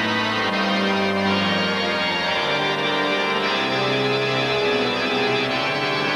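Organ music with sustained chords that change every second or so.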